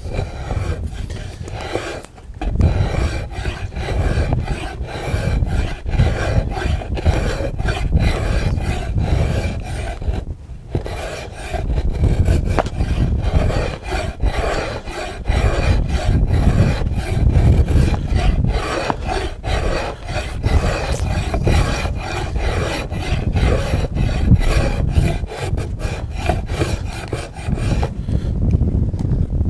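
Newly forged draw knife being pulled through wood stock, a long run of short scraping strokes as it takes shavings, with brief pauses about two seconds in and about ten seconds in.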